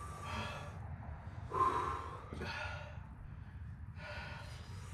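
A man breathing hard in about four heavy puffs and gasps, one with a brief strained voiced catch about two seconds in: pained breathing from the burn of superhot chilies, while he fights off nausea.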